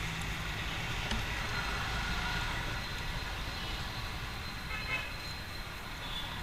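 Steady background rumble of vehicle traffic, with a light click about a second in and a few brief faint clinks around five seconds.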